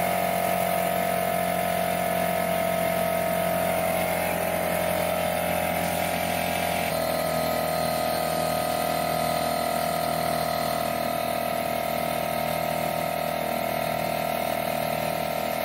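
Craftsman 6-gallon oil-free pancake air compressor running steadily as its pump fills the tank, pressure building now that the tank's bleeder valve is closed.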